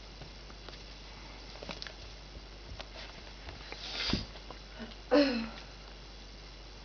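A kitten scuffling with a plush toy on carpet: soft scattered rustles and taps, a dull thump about four seconds in, then a short, loud voice-like sound about a second later.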